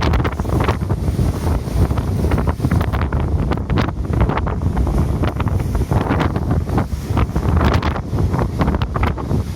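Strong wind buffeting the microphone in irregular gusts over the rush of heavy surf, the rough waves stirred up by a typhoon.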